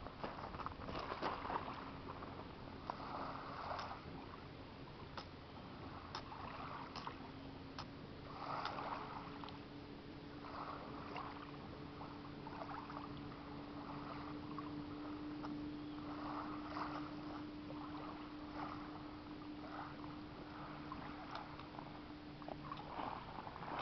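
Footsteps crunching on beach pebbles, a step every second or so, over a steady low hum that cuts off suddenly near the end.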